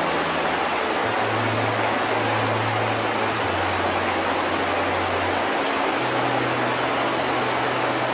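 Steady hiss of heavy rain, with soft background music underneath whose low bass notes shift every couple of seconds.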